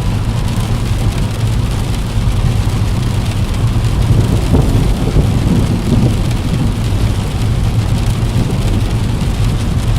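Steady rain falling on a window with a deep rumble of thunder underneath, swelling slightly about halfway through.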